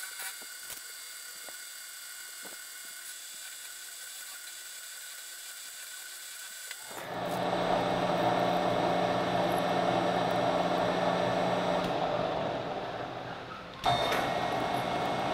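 Milling machine spindle running as a small end mill cuts a metal bar in a vise, a steady high whine with faint ticks. About seven seconds in this gives way to a louder, lower sound as a twist drill in the mill's chuck bores into the metal; near the end it eases off, then jumps back sharply as the drill bites again.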